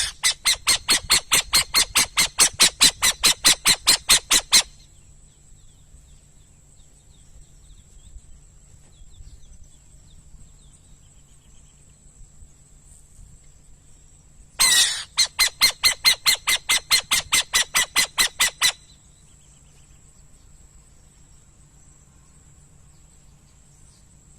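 Burrowing owl calling in two bursts of rapid, evenly spaced harsh notes, about five a second for about four seconds each. Each burst opens with a louder rasping note, and the second begins about fifteen seconds in.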